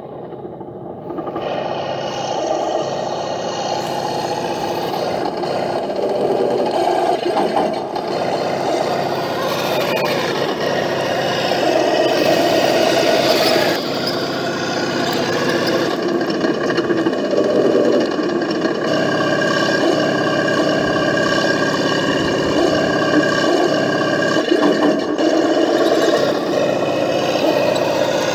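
1/16 scale RC Sherman tank running: a steady whir of its drive motors and gearbox with its tracks scraping over dirt, starting up about a second in and then holding loud.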